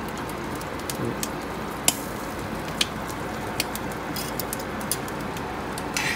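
Metal tongs clicking against the wire rack of a stove's fish-grill drawer as raw sanma are laid on it, a few sharp scattered clicks over a steady hiss.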